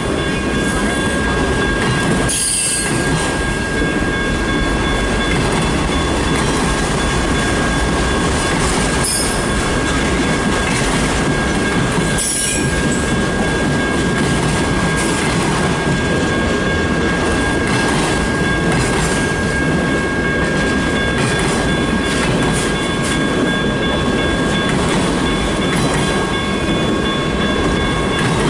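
Freight train cars rolling steadily past close by: the rumble and clatter of wheels on the rails, with high steady squealing tones from the wheels held over it throughout.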